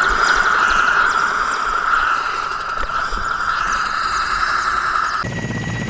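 Military transport helicopter running, a steady high turbine whine mixed with rushing wind on the microphone. About five seconds in it cuts abruptly to a lower, steadier helicopter drone.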